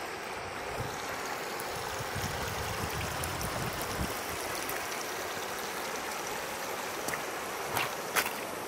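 Shallow river running over stones in riffles, a steady rush of water, with two sharp knocks near the end.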